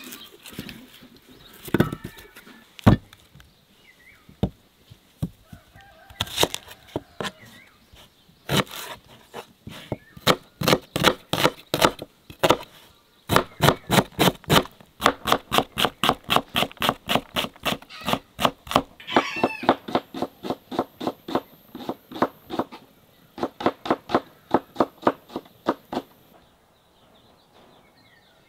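Kitchen knife cutting red onion on a wooden cutting board: a few separate cuts at first, then steady chopping at about four strokes a second from about ten seconds in, stopping shortly before the end.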